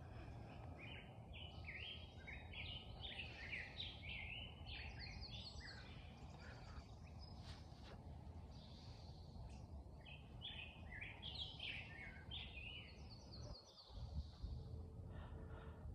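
Songbird singing two bouts of quick, varied chirping notes, over a steady low background rumble.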